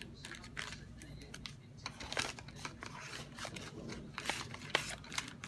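Colour pencils being handled in their box: a run of small clicks, rattles and rustles, with sharper clicks about two seconds in and again near the end.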